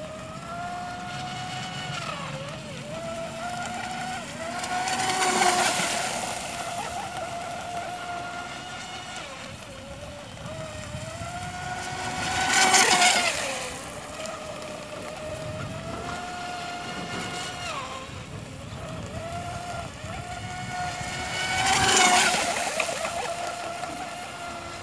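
Radio-controlled speedboat's motor running at speed with a steady high whine that wavers with the throttle. It swells loud three times as the boat passes close, about five, thirteen and twenty-two seconds in, each pass bringing a hissing rush and a drop in pitch as the boat goes by.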